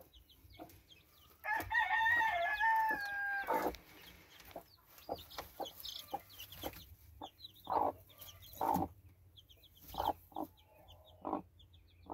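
A rooster crows once, a call of about two seconds starting a second and a half in. Then comes a run of short clucks from a game hen brooding her chicks, with faint high peeps.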